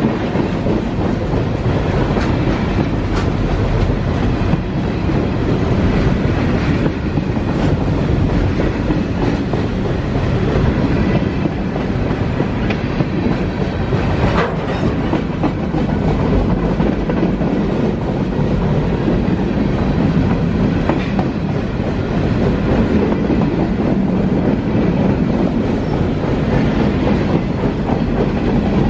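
A freight train's covered hopper and tank cars rolling past at close range. The wheels make a loud, steady rumble on the rails, with occasional sharp clicks at the rail joints.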